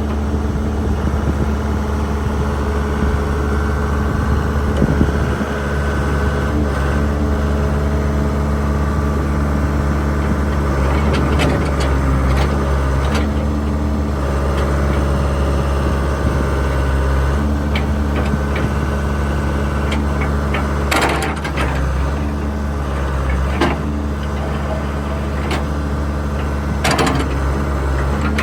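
John Deere 310D backhoe loader's diesel engine running steadily, its pitch shifting slightly as the machine is worked, with several sharp metallic clanks from the working machine in the second half.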